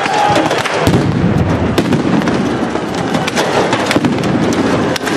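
Sharp, irregular cracks and bangs of a street clash between protesters and riot police: thrown paving stones strike shields and pavement amid explosive pops. A heavier, deeper blast comes about a second in.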